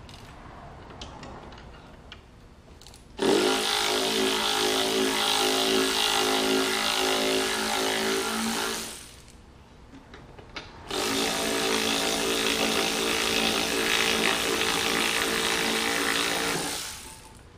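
A motor-driven tool or machine runs twice at a steady speed, each time for about five and a half seconds: a loud hum whose pitch holds steady. It starts about three seconds in, stops, and starts again about eleven seconds in.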